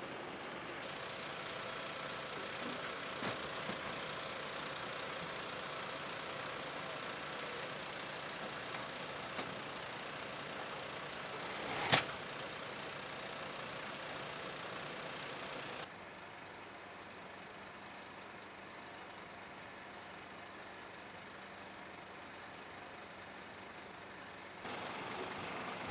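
Steady engine noise of fire engines idling, broken by edits: a sharp click about twelve seconds in, and the noise drops to a lower level from about sixteen seconds in before rising again near the end.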